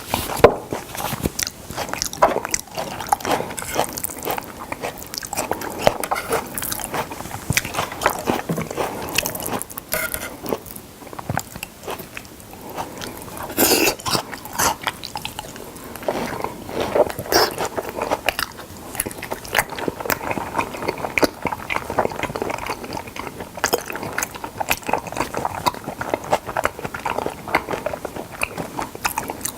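Close-miked chewing and biting of raw salmon, a continuous run of irregular mouth clicks and smacks, with louder bites about halfway through.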